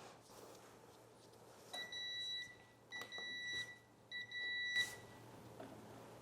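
Panasonic FlashXpress toaster oven's timer beeping three times, each beep just under a second long, signalling that the toast cycle has finished.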